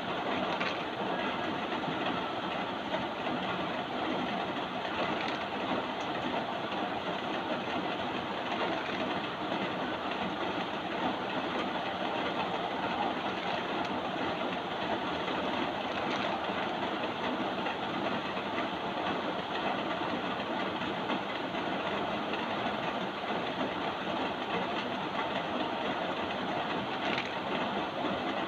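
Steady rain, a continuous even hiss with no let-up.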